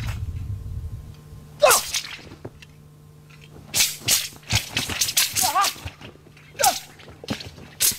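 A martial arts weapon swished sharply through the air during a kung fu form: a loud swish about two seconds in, a quick run of swishes in the middle and another near the end.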